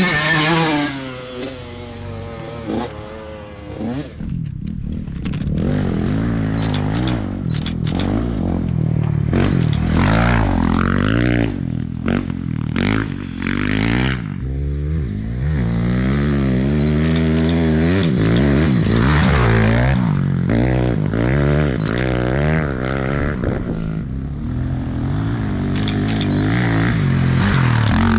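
Off-road motorcycle and ATV engines revving on a dirt course, several at once, their pitch rising and falling as they throttle up and back off. The sound drops briefly a couple of seconds in, then builds again.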